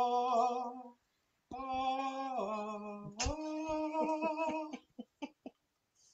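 A person humming long held notes that step up in pitch, in two phrases. Under the second phrase and after it, a fork whisking egg in a small glass bowl clicks against the glass about four times a second.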